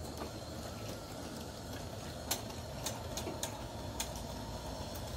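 G scale model steam train running on its track: steady low rumble of motor and wheels, with a handful of sharp clicks from a little after two seconds in.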